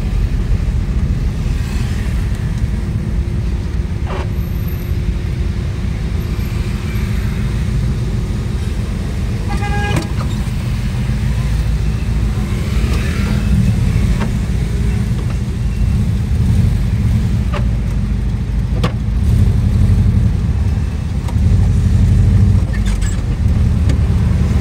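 Steady low rumble of a VW Kombi's engine and road noise, heard from inside the cab while driving in city traffic. A car horn toots briefly about ten seconds in.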